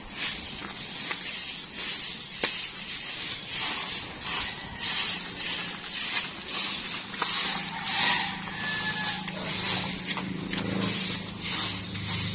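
Footsteps crunching on gravel, about two a second, as men walk carrying a heavy load. From about halfway through, a motor vehicle's engine hum builds and grows louder near the end.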